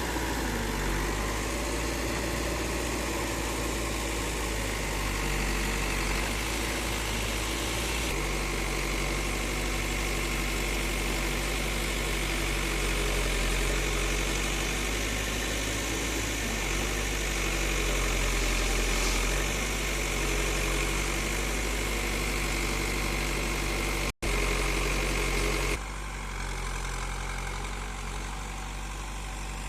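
Heavy diesel machine engine running steadily at a low speed. It cuts out for an instant about 24 s in, and from about 26 s a quieter engine sound takes over.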